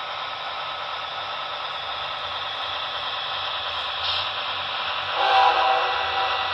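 Sound-equipped model CSX diesel locomotive playing its engine sound through a small onboard speaker: a steady, hissy running sound that grows a little louder as it approaches. A louder horn note comes in about five seconds in.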